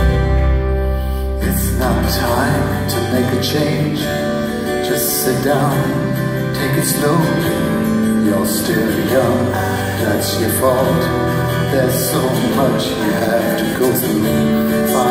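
Acoustic guitar strummed live in a steady rhythm, an instrumental passage between sung verses.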